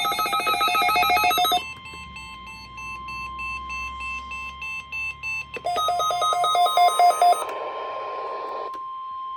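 NOAA Weather Radio Emergency Alert System data bursts, a harsh warbling buzz, from several weather radio stations heard at once and out of step: a loud burst ending under two seconds in, a fainter one after it, another loud burst about six seconds in, then a short hiss of static. Under them runs the steady weather radio warning alarm tone. Together they mark the start of an emergency alert, here a practice tornado warning.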